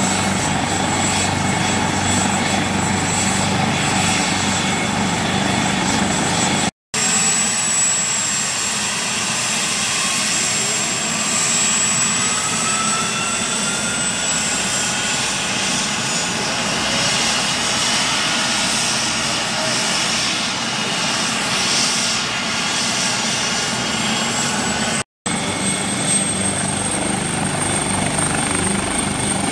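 Helicopter running: steady turbine and rotor noise with a high, thin turbine whine, cut off abruptly for an instant twice, about seven seconds in and again near the end.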